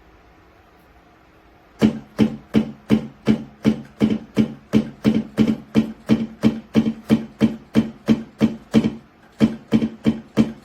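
Donner DED-200 electronic drum kit sounding a pitched drum voice, struck repeatedly at an even pace of about three hits a second, beginning about two seconds in.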